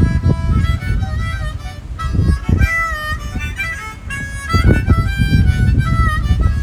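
Harmonica played solo: a melody of held and quick notes, some bent in pitch, with wind buffeting the microphone in low rumbling gusts underneath.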